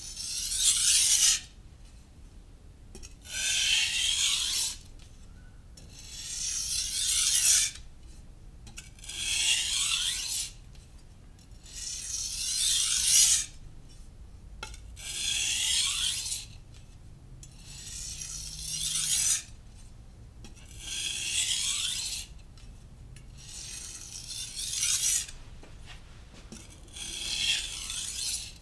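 A steel knife blade being sharpened on a Naniwa Professional (Chosera) 600-grit whetstone: ten long grinding strokes, one about every three seconds. Each stroke grows louder and then cuts off sharply.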